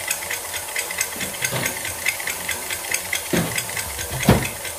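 KitchenAid tilt-head stand mixer running on low with its wire whisk beating boiled potatoes in a steel bowl: a steady motor hum with a rapid regular ticking. A few louder dull thumps come through, the loudest near the end.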